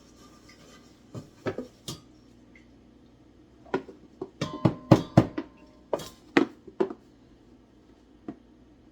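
Kitchen clatter: a series of sharp knocks and clinks from containers and utensils being handled and set down, a few at first and then a dense run in the middle, some ringing briefly.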